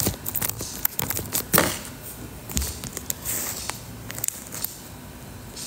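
Scattered clicks and brief rustling noises of a phone being handled, close to its microphone.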